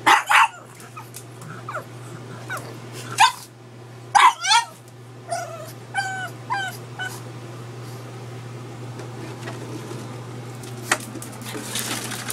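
A pug barking at a plastic gallon water jug: a few short, sharp barks in the first half, followed by a string of short, high whining yips. A steady low hum runs underneath, and a brief rustling noise comes near the end.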